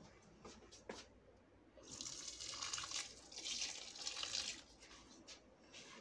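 Water poured from a small container onto the soil of a potted plant: a splashing hiss starting about two seconds in and lasting close to three seconds, after a couple of faint knocks.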